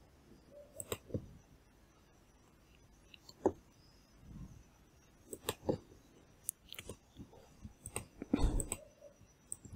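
Computer mouse clicking: about a dozen short, sharp clicks at irregular intervals, some in quick pairs, over faint room tone.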